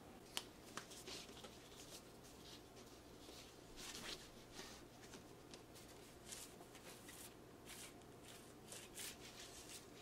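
Faint rustling and light clicks of a vinyl record being handled and slid out of its sleeve, the sharpest click about half a second in.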